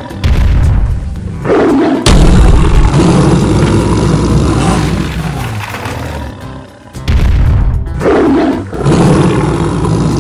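Tiger roaring: three long roars, starting near the start, about two seconds in and about seven seconds in, over background music.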